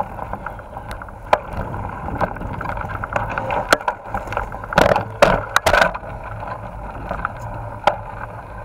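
Mountain bike riding down a dirt forest trail, picked up by a camera mounted on the bike or rider: a steady rushing of tyres and air with sharp rattling knocks over bumps, a burst of them about five seconds in.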